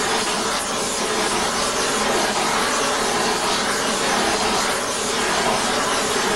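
Oxy-fuel gas torch burning with a steady hiss as its flame heats an aluminum Shovelhead cylinder head, its oxygen bottle running low.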